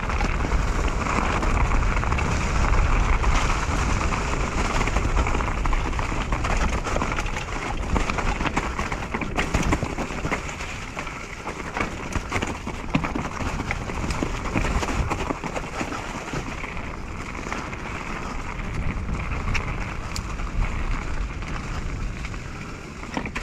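Mountain bike riding down a leaf-covered dirt trail: tyres rolling and crunching over leaves, roots and rocks in a continuous noisy rush, with many small knocks and rattles from the bike and a steady low rumble.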